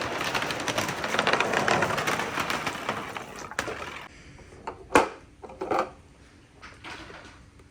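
Marbles rolling and clattering along a handmade wooden marble-run track: a dense rattle of small clicks that stops about four seconds in, followed by a few sharp wooden knocks.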